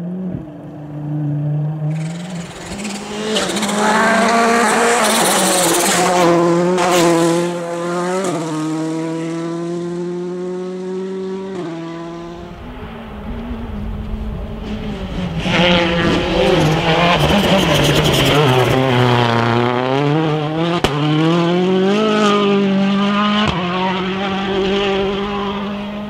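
Rally car engines at high revs: the note climbs through the gears, dropping sharply at each upshift. After a cut about twelve seconds in, a second car's engine note sinks as it slows, then climbs again as it accelerates away.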